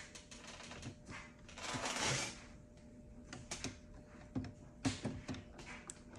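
Light clicks and taps of hard plastic being handled: an Epson 502 ink bottle and the caps of an Epson EcoTank printer's ink tank. A brief louder rustle comes about two seconds in.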